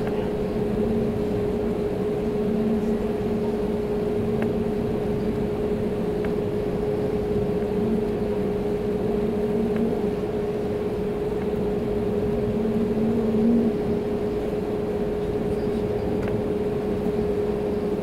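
Steady airliner cabin drone from the jet engines idling while the plane waits to take off, heard from inside the cabin: a constant hum with a lower tone that comes and goes.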